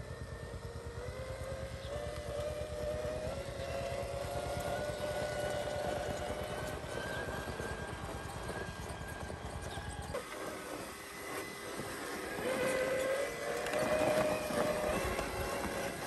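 Whine of the Crossrc AT6 6x6 RC crawler's electric motor and gears under throttle, its pitch slowly rising and falling as it crawls over rock. A low rapid rattle runs under it for the first ten seconds or so, then stops.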